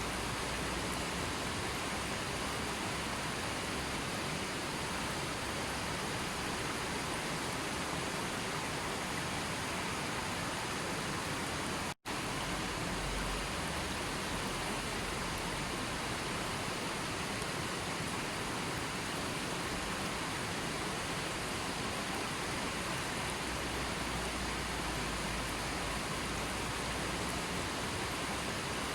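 Steady, even rushing of water, a recorded nature ambience, broken by a split-second dropout about twelve seconds in.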